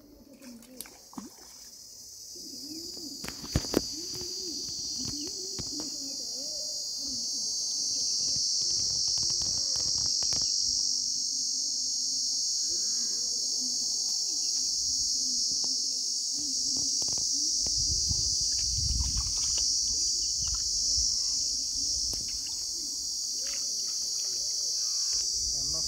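A steady, high-pitched chorus of insects buzzing, growing louder over the first few seconds, with a couple of sharp clicks about three and a half seconds in.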